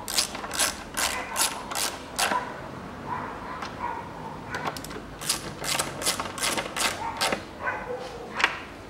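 Ratchet wrench clicking as a bolt is turned by hand, about two and a half strokes a second, in two runs with a pause of about three seconds between them and one last sharp click near the end.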